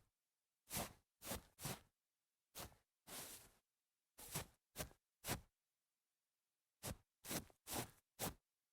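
Feet shuffling and scuffing through grass: about a dozen short swishes, eight in an uneven run, then a pause of about a second and a half, then four more in quicker succession.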